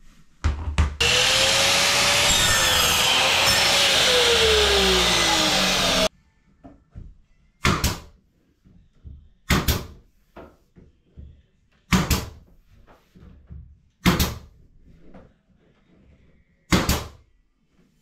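An air compressor runs loudly for about five seconds and then cuts off suddenly. A pneumatic nail gun then fires five separate shots a few seconds apart, nailing wooden trim around a door frame.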